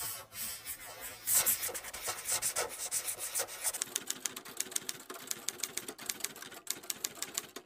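Logo sound effects: a scratchy pen-nib-on-paper sound as the script lettering is drawn, then, from about four seconds in, a rapid run of typewriter key clicks as the text types out.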